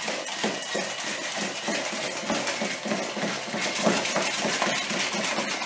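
Hand-held electric mixer running at low speed, its beaters rattling and scraping against a stainless steel bowl as they cream softened butter and sugar.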